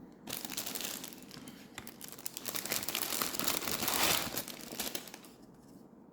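Packaging wrap crinkling as it is handled and pulled open. It starts just after the beginning, is loudest about four seconds in, and stops a second later.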